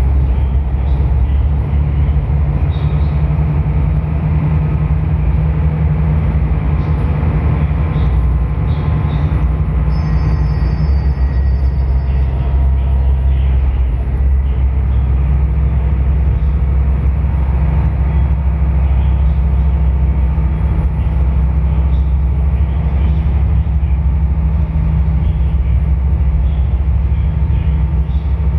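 Small passenger ferry's diesel engine running steadily under way, a loud, even low drone.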